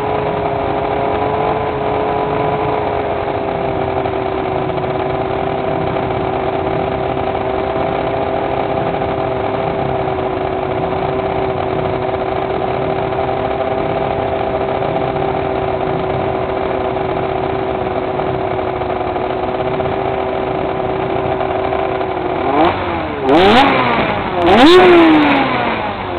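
Racing motorcycle engine idling steadily, heard from a camera mounted on the bike. Near the end the throttle is blipped three times, the revs shooting up and dropping back each time, the last blip the loudest.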